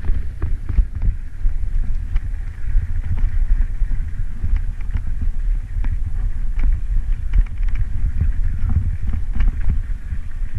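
Bicycle riding down a rough unpaved road: wind buffets the microphone in a steady low rumble, while the bike rattles and knocks irregularly over the bumps.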